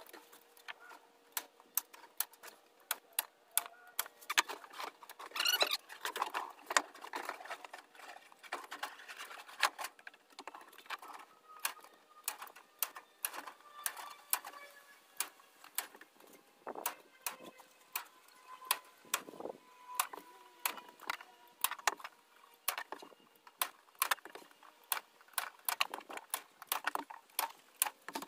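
Hand staple gun firing staples to fasten hardware cloth to a wooden frame: sharp snapping clicks, about one or two a second and irregular, with softer handling noise between them.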